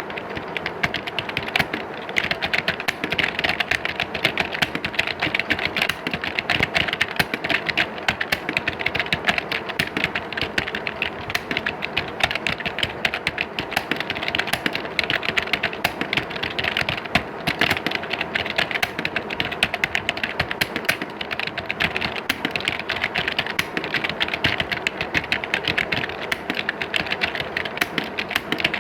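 Continuous, rapid typing on computer keyboards, a dense stream of overlapping key clicks with no pauses, like many typists at work in an exam hall.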